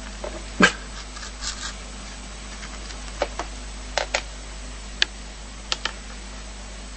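A dog giving short, sharp barks: the loudest comes about half a second in, and the rest mostly come in quick pairs.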